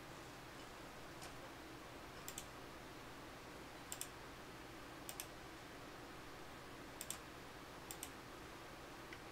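Computer mouse clicking: about five quick double clicks spread a second or so apart, with a single click before them and a faint one near the end.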